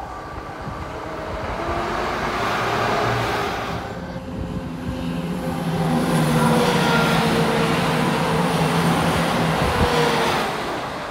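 ScotRail Class 170 Turbostar diesel multiple units passing at speed: wheels rushing on the rails over a steady diesel engine drone. The sound swells twice, breaking off suddenly about four seconds in.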